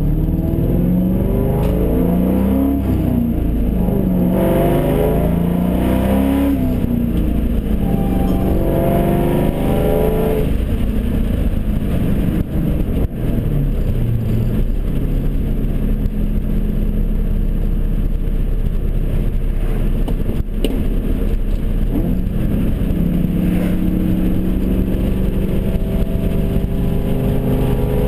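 2002 Mustang GT's 4.6-litre V8 running through long-tube headers, an off-road mid-pipe and a straight-piped catback, heard from inside the cabin. The engine note climbs in pitch under acceleration for the first ten seconds or so, settles to a steady drone, then rises again in the last few seconds.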